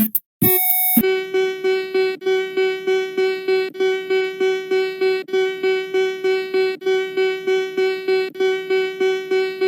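Synthesized emergency alert alarm tone: one steady, buzzy pitched note that pulses about three times a second. It follows a few short, separate beeps in the first second.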